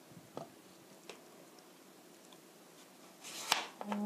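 Kitchen knife slicing through a zucchini onto a plastic cutting board: a couple of soft knocks in the first second or so, then a louder cut with a short rustle near the end.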